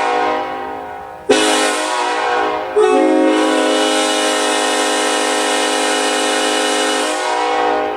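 Nathan Airchime K5LLA five-chime locomotive horn blowing its chord on compressed air, in long blasts. A blast tails off, a new one sounds sharply about a second in and gets louder a second and a half later. It then holds steady for about four seconds and tails off near the end.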